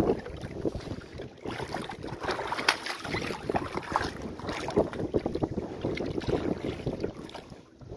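Water splashing and slapping at the boat's side as a hooked manguruyú catfish is held at the surface on the leader, in many short, uneven splashes, with wind buffeting the microphone.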